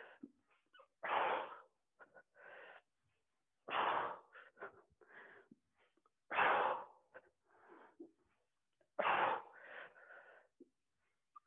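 A woman's forceful breaths out, four strong ones about every two and a half seconds, with quieter breaths in between: effort breathing with each rep of crunch-style sit-ups.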